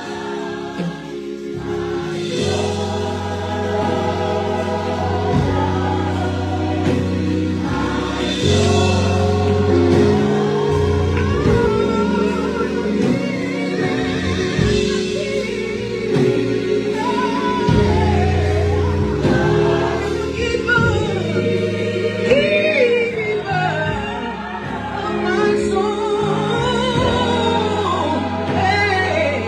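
Gospel choir singing sustained, held chords with a band's steady bass underneath, and a solo voice bending over the top in places.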